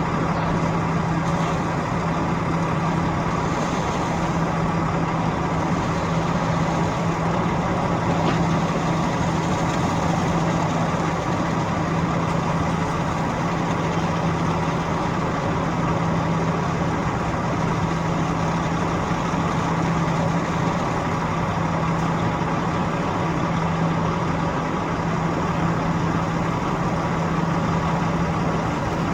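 Construction machinery engine running steadily at one speed, a constant hum with no change in pitch.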